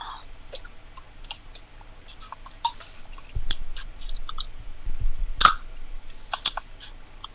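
A string of small clicks and taps with a few sharp snaps, the loudest about three and a half and five and a half seconds in, heard through a phone's speaker: a soda can being pried open with teeth.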